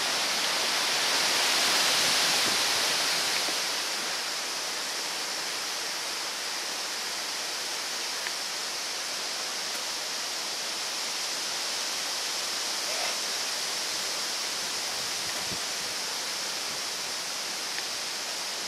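Steady outdoor rushing hiss with no distinct events, a little louder for the first three seconds or so and then even.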